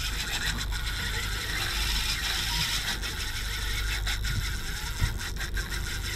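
Fishing reel working under load while a fish is fought on a bent rod, its gears whirring steadily with a few sharp clicks from about four seconds in.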